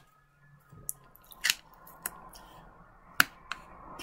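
Fingers tying the knot in the neck of an inflated 260Q latex modelling balloon: a handful of sharp latex clicks over light rubbing, starting about a second in.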